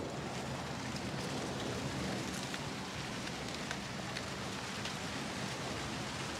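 Steady outdoor background noise: an even hiss with a low hum beneath it and a few faint scattered ticks.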